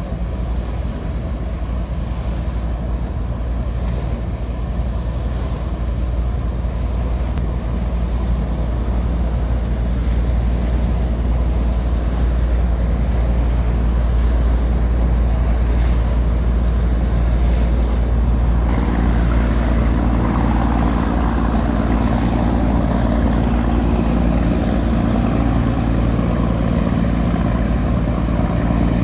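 Hayabusa-class missile boat under way at speed: a steady low hum of its gas turbines and waterjets with the rush of its bow wave and wake. It grows louder and fuller about two-thirds of the way through.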